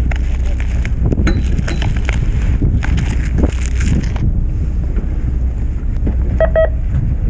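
Steady low rumble and wind on the microphone aboard a fishing boat, with crackling handling noises through the first few seconds and a brief electronic beep near the end.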